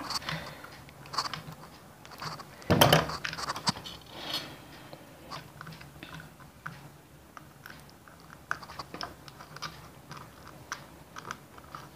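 Small clicks and rustles of hands and pliers working insulated copper wire onto a terminal screw of a plastic switch plate, with a louder crunch about three seconds in.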